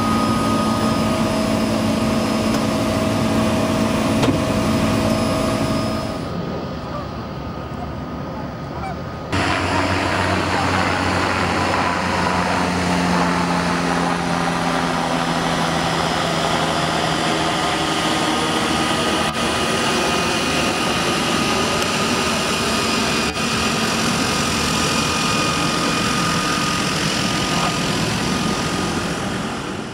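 Floatplane engine and propeller running steadily, heard from inside the cabin as the plane moves on the water. After a quieter stretch of a few seconds it gives way to a de Havilland Otter floatplane's turbine engine and spinning propeller running close by, with a whine that rises and falls, fading out at the end.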